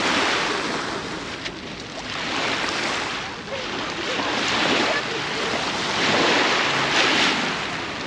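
Small waves washing up and back over a pebble shore: a hiss that swells and fades every second or two.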